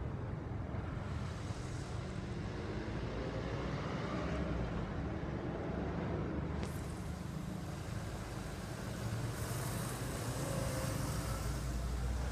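Steady low outdoor rumble with a faint hiss, and a single sharp click about six and a half seconds in.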